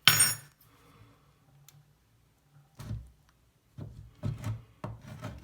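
Old bathroom faucet being worked free and lifted out. A sharp metallic clink with a brief ring at the start, then a knock about three seconds in and several knocks and clunks near the end.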